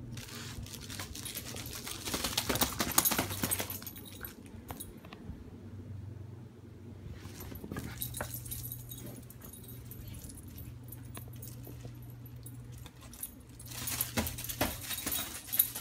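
Small dog playing with a plush squeaky takeout-box toy: its collar tags jingle in bursts as it grabs, shakes and carries the toy, with squeaks and rustling from the toy. Near the end its claws click on a tiled floor.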